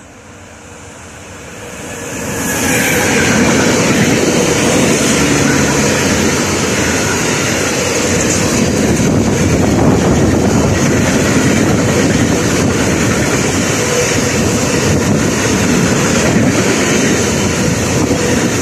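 Electric freight locomotive, HSL's class 186 TRAXX, approaching and passing close by, growing loud over the first three seconds, then the steady rolling and wheel noise of a long train of gas tank wagons going past.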